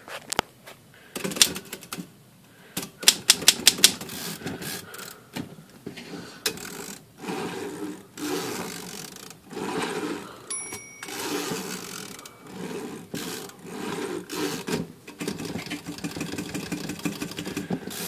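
Royal 10 manual typewriter's carriage stepping along under its newly fitted drawband and mainspring, with the escapement clicking in quick runs and a burst of sharp, loud clicks about three seconds in. The carriage is moving under spring tension, a sign that the drawband repair works.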